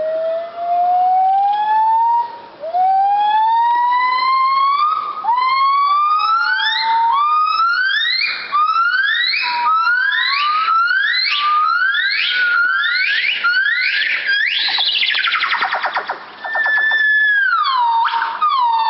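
Buff-cheeked gibbon great call: a run of loud whooping notes, each gliding upward in pitch. The notes start long and grow shorter, faster and higher, build to a rapid warbling trill about 15 seconds in, then turn to falling notes near the end.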